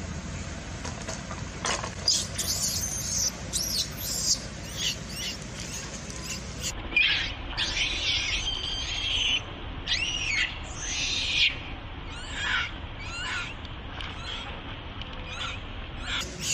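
Baby macaque crying in a string of high-pitched calls, some arching up and down in pitch, starting about two seconds in and tailing off near the end, loudest in the middle.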